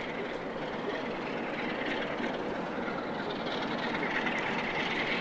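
Pair of Class 47 diesel locomotives' Sulzer engines running with a steady drone that grows slightly louder toward the end.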